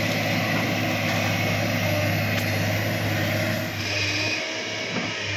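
Tracked hydraulic excavator's diesel engine running steadily with a low hum while the machine works its arm, dragging an uprooted tree; the sound shifts slightly about four seconds in.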